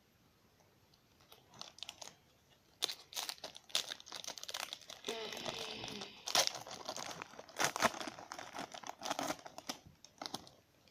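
A trading card pack's wrapper being torn open and crinkled. Irregular crackling and rustling start about a second and a half in and keep going in uneven spurts.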